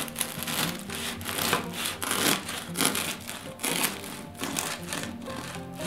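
Serrated bread knife sawing through the hard crust of a sourdough loaf, a crunchy rasp with each back-and-forth stroke, repeated about every half to three-quarters of a second.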